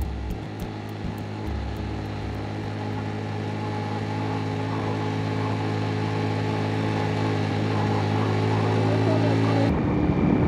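Suzuki GN125's single-cylinder engine running at a steady speed, slowly growing louder. The sound changes abruptly shortly before the end.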